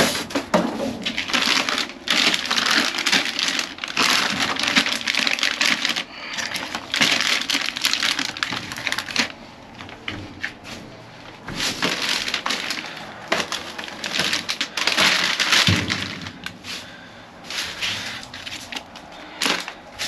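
Plastic snack packaging and trash bags crinkling and rustling as they are picked up and shifted, with crunching, in repeated bursts of a second or two.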